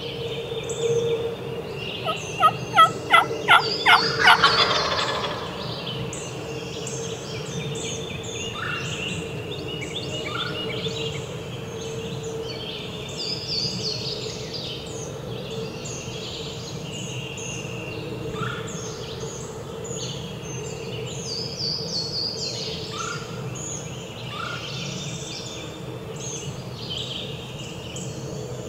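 Wild turkey gobbler gobbling once, a loud rattling series of about seven quick notes about two seconds in. Songbirds chirp and sing throughout.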